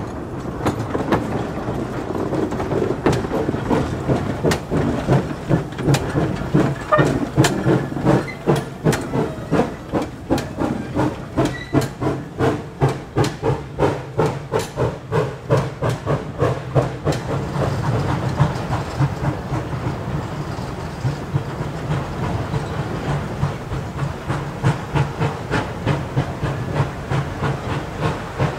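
A 1927 Vulcan 0-4-0T steam tank locomotive working, its exhaust chuffing in an even beat of about three a second over steady steam hiss. The beat is loudest in the middle, eases off for a few seconds after about two-thirds of the way, then picks up again more softly.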